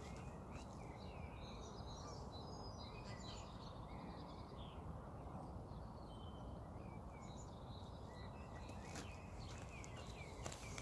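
Small birds singing, many short chirps and warbling phrases, over a low steady background noise of open air. A few faint clicks come near the end.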